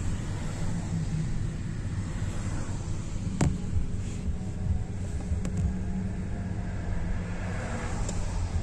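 Car cabin noise, a steady low engine and road rumble, heard from inside a taxi creeping through stop-and-go city traffic. A single sharp click sounds about three and a half seconds in, with two fainter ticks a couple of seconds later.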